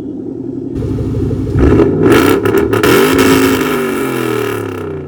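Lexus GS400's 1UZ-FE V8 revved through an exhaust with two 3-inch resonators into 4-inch tips. It idles, climbs in revs about a second in, stays at high revs for a few seconds, then falls back toward idle near the end.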